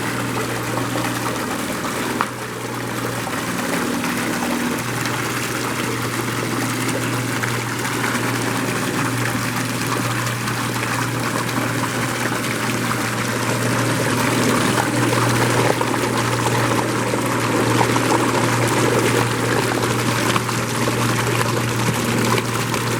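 Homemade PVC-pipe water pump driven by an old washing machine motor, running steadily: water pours and splashes from its outlet over a constant low motor hum, with a brief dip in level about two seconds in.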